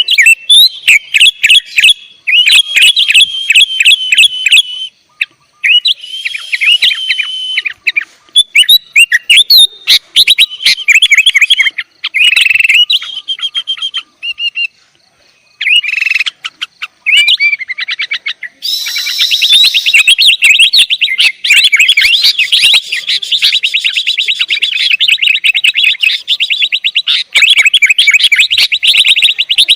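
Sooty-headed bulbul (kutilang) calling: bursts of quick, loud chirps with short pauses, then from about two-thirds of the way through a long, fast run of repeated notes.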